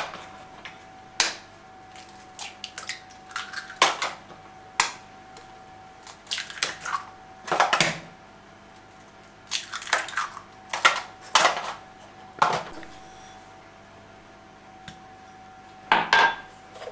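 Eggs knocked one after another against the rim of a plastic mixing bowl and cracked open, with short clatters of shells and containers being handled in between. A faint steady tone runs underneath.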